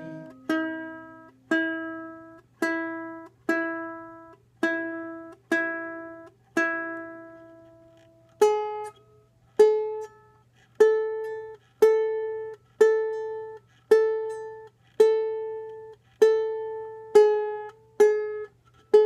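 Six-string koa tenor ukulele being tuned: a single string plucked about once a second and left to ring, then from about eight seconds in a higher string plucked the same way. The strings are new and still stretching.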